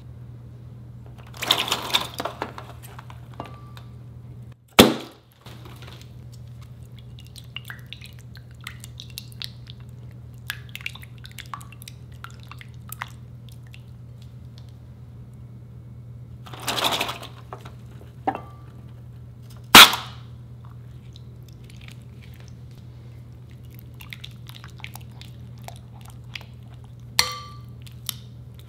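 Water splashing in a glass mixing bowl and being stirred with a silicone spatula, with scattered light ticks. Two loud sharp cracks stand out, about five seconds in and again about twenty seconds in.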